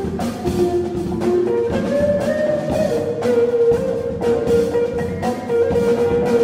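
Big band jazz ensemble playing, with long held melodic notes over steady drum-kit time.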